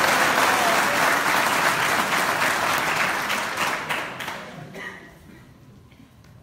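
Crowd applauding, a dense clapping that thins out and dies away about five seconds in.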